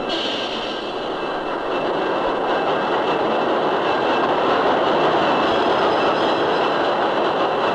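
A diesel-hauled freight train running past: a steady rumble and rattle of locomotives and cars, growing a little louder after about two seconds, with a thin high whine over it.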